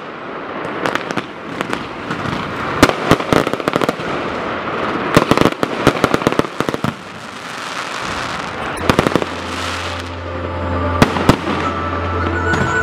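Fireworks going off in quick succession: many sharp bangs over a continuous crackle, thinning out in the last third as a steady low hum comes in.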